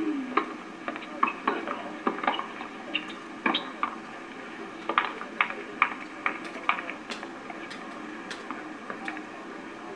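Tennis balls being hit with racquets and bouncing on a hard court: a string of sharp pops at irregular intervals, with a quick run of them about five to six seconds in, over a steady hiss.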